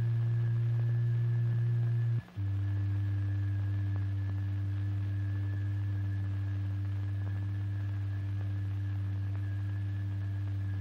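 Steady low electronic tone driving the vibration of the fluid in a cymatics experiment. It cuts out briefly about two seconds in and comes back a little lower in pitch.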